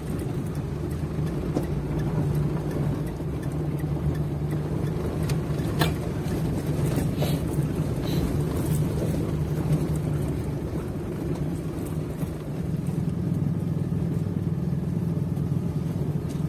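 A vehicle's engine running steadily while being driven: a continuous low drone with road noise, and a few faint clicks near the middle.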